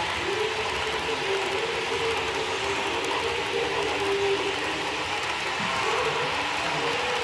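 HO-scale model train cars rolling along the track, a steady mechanical clatter. A wavering whine runs over it for about four seconds and returns near the end.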